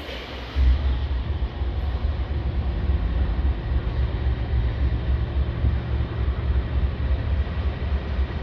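Low, steady rumble of a CSX diesel-powered freight train pulling out. It comes in suddenly about half a second in, just after a brief hiss.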